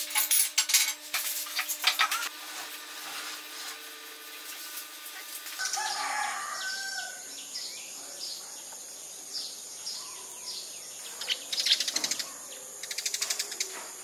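Sharp wooden clicks and knocks as a small pine window frame is pressed into place on a birdhouse wall. Then sparrows chirp over a steady high-pitched background whine, with two bursts of wing flutter near the end.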